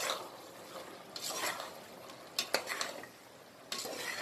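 Long metal spoon stirring soya chunks, tomato and onion in an aluminium pressure cooker, scraping against the pot in a few strokes, with two sharp clinks about two and a half seconds in.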